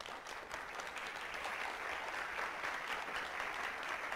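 Audience applauding at the end of a talk: many hands clapping together, starting abruptly and holding steady.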